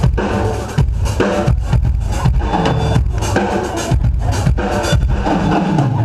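Live rock band playing: a drum kit keeps a steady beat with kick and snare under electric guitars and bass.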